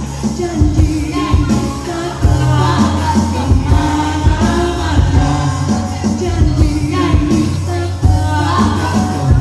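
A pop song: a singer's voice over a band, with a strong sustained bass line and drum beats.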